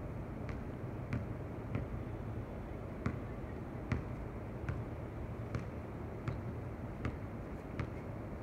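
A basketball being dribbled on an outdoor hard court, bouncing in a steady rhythm of about one bounce every three-quarters of a second, over a steady low background hum.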